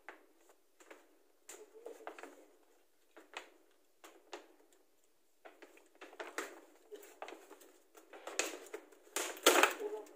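Paper gift bag rustling and crinkling as hands work inside it and pull an item out. The rustles come in scattered short bursts and grow busier and louder in the last few seconds.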